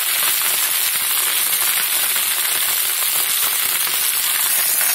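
Cut okra with sliced onion and green chillies frying in hot oil in a pan: a steady sizzle with fine crackling.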